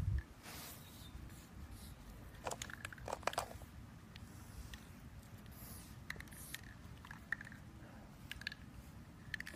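Faint handling noise: scattered small clicks and rustles as the air rifle is moved about on a cloth drop sheet, with a low rumble of wind underneath. There is a soft thump at the start and a cluster of clicks a few seconds in.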